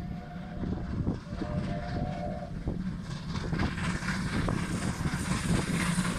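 Two South African Railways Class 19D steam locomotives working a passenger train, a steady low rumble of exhaust and running gear that gets louder and brighter in the second half as the train closes in.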